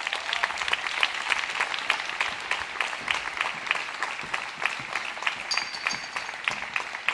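Applause from the audience and cast at the end of a song: dense, steady clapping.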